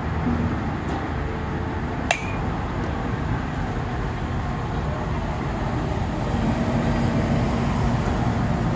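A softball bat hits a machine-pitched softball once, about two seconds in: a single sharp crack with a brief ringing ping. A steady low rumble runs underneath.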